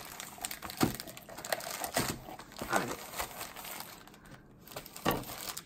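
Crinkling and rustling of cookie packaging being handled: a plastic-wrapped roll of cookies and a white paper tray, with a few sharp clicks and taps.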